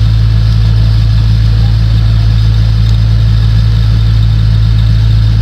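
A loud, steady low hum that does not change at all.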